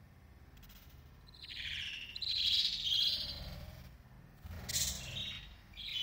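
Budgerigars chirping: a run of high chirps in the first half, then a few shorter chirps near the end.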